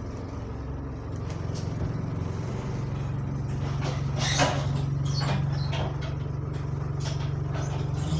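Bus engine running steadily, heard from inside the bus, with occasional rattles and knocks from the body and fittings.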